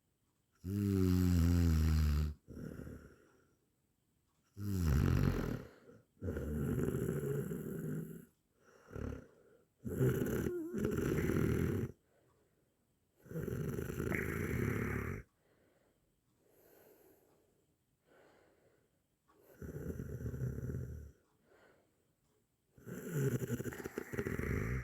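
Snoring: about seven long snores in an uneven rhythm, each lasting one to two seconds with short quiet gaps between, and a longer pause about halfway through.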